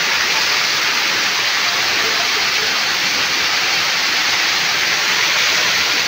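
Kintampo waterfall pouring over rocks: a loud, steady rush of falling water.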